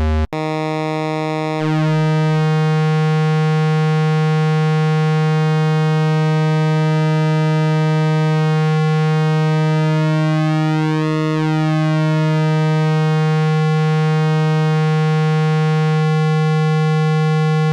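Behringer 2600 analog synthesizer oscillator holding one steady low buzzy note while its pulse width is trimmed toward 50%. The even harmonics waver in and out, then drop away about sixteen seconds in, leaving a hollow square wave.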